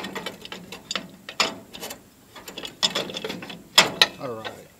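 Metal headlight bezel ring of an M35 truck being worked loose and lifted off the headlight housing: a run of irregular metal clicks, knocks and scrapes.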